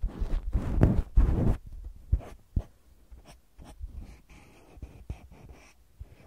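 Cotton pad rubbing over a microphone's mesh capsule, loud and scratchy for the first second and a half, then a cotton swab brushing and scraping at the capsule in quieter, scattered strokes.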